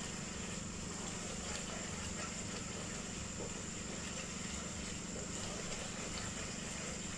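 Steady low mechanical hum with a faint hiss, and now and then a soft scrape of a wooden spoon stirring stew in a metal pot.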